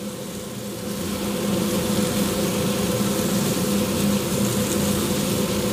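Catfish sausages sizzling on a hot griddle plate, a steady fine hiss over a low, even hum; it gets a little louder about a second in.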